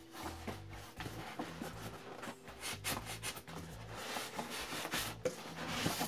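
Polystyrene foam packing insert rubbing and scraping against a cardboard box as it is worked loose and lifted out, a run of uneven scratchy strokes.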